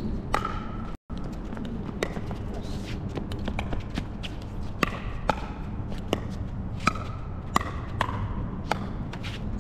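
Pickleball rally: paddles striking the hard plastic ball in sharp, ringing pops, a dozen or so at irregular intervals with fainter taps between, over a steady low wind rumble. The audio drops out for an instant about a second in.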